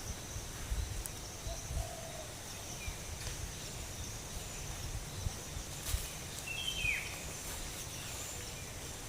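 Tropical forest ambience: a steady high-pitched insect drone, with a single short bird call that falls in pitch about two-thirds of the way through. Scattered low bumps are also heard.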